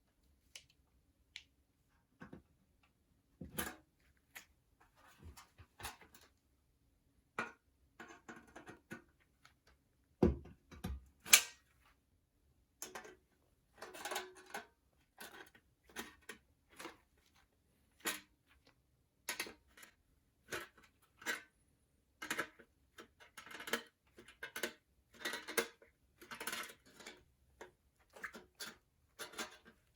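Thin stainless steel trays being worked by hand with tools: irregular clicks, taps and short scraping sounds of metal, with a couple of sharper knocks about ten seconds in.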